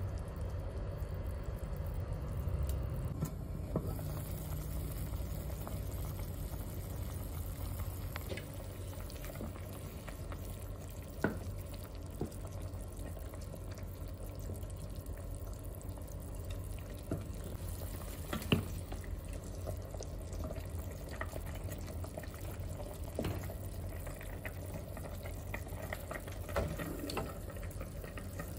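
Wooden spoon stirring chicken pieces through simmering broth in a pot, a sloshing, liquid sound, with scattered light knocks of the spoon against the pot over a steady low hum.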